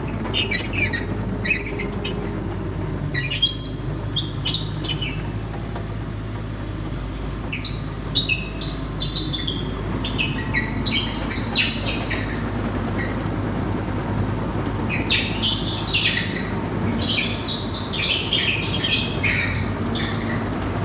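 Kubota KX71-3 mini excavator tracking forward: the engine runs steadily under clusters of short, high squeaks and creaks from the rubber-track undercarriage, busiest in the second half. This is the noise left after the roller repairs, mainly from the left side, which the owner thinks could be the front idler wheel or track pieces worn down to the metal.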